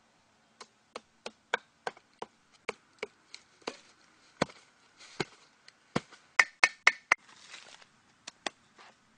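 Wood being struck: about twenty sharp wooden knocks and chops at uneven intervals, with a quick, louder run of four about two-thirds of the way through.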